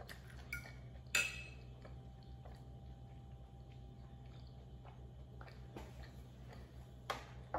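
Quiet sounds of eating pasta: a sharp clink of cutlery about a second in, then a few fainter clicks and clinks of a fork and plate, over a steady low hum.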